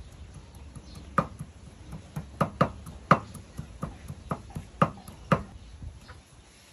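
Cleaver chopping on a round wooden chopping block: about a dozen sharp, irregular knocks, starting about a second in and stopping about a second before the end.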